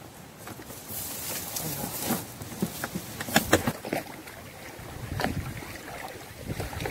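Water splashing as a person in waders walks through shallow water gathering duck decoys, with short, irregular knocks and splashes as the decoys are handled and pulled together.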